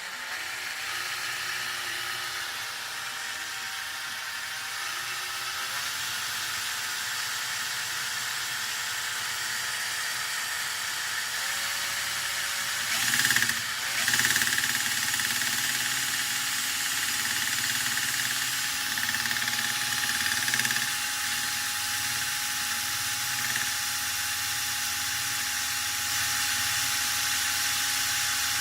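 Steady mechanical whir with hiss from a repaired JAWA 634 speedometer/odometer being spun for a test. Its pitch steps up a few times, and about 13 seconds in it gets louder and glides up to a higher speed.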